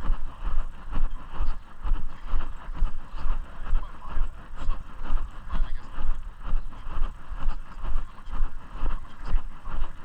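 Footsteps at a steady walking pace, about two a second, each with a low thump, over a constant rustling noise.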